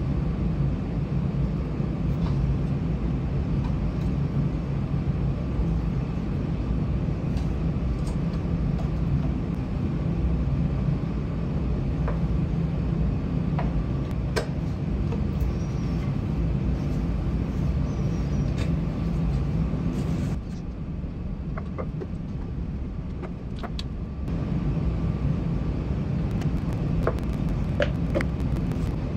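A steady low mechanical hum that dips briefly about two-thirds through, with a few light clicks and taps of wooden trim pieces being handled and fitted.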